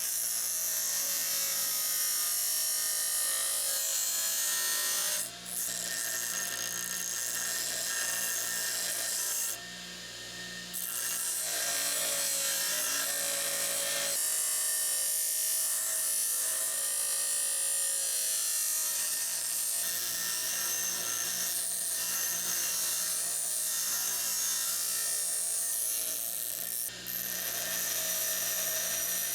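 Power grinder grinding a steel rebar fork blank to shape: a steady abrasive hiss over the machine's running hum, with short breaks about five seconds in, around ten seconds in and near the end.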